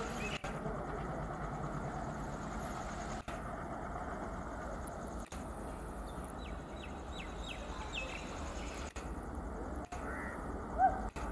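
Low, steady rumble of a WDG3A diesel locomotive's ALCo engine approaching from a distance, with birds calling over it and one louder call near the end.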